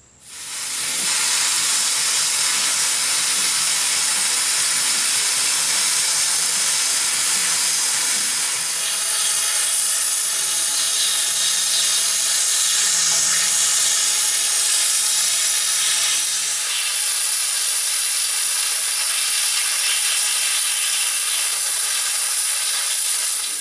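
Small CUT-40 air plasma cutter cutting through the steel wall of an old propane tank: a loud, steady hiss of the arc and air jet that dips briefly twice, about 8 and 16 seconds in.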